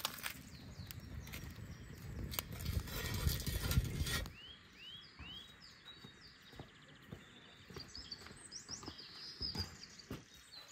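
Wood fire burning with scattered small crackles and snaps, under a dense low rumbling noise for about the first four seconds. From about four seconds in, small birds call repeatedly with short rising chirps.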